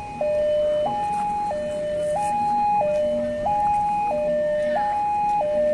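Electronic warning alarm of a railway level crossing, a steady two-tone hi-lo signal alternating between a lower and a higher note about every two-thirds of a second, warning that a train is approaching.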